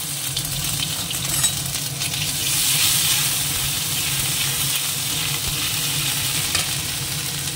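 Garlic and ginger paste frying with a steady sizzle in hot oil in an iron kadai, stirred with a steel spatula that scrapes the pan, with one sharp tap about a second and a half in.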